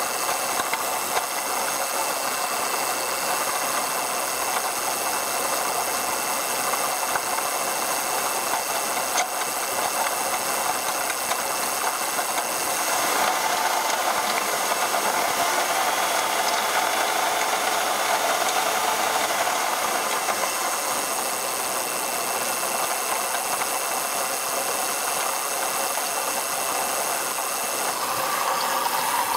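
2004 Ford Taurus V6 engine running, with a grinding, rattling noise from the engine bay. The engine is revved for several seconds about 13 seconds in, and the noise speeds up with the engine. The owner suspects the air conditioning compressor but is not sure.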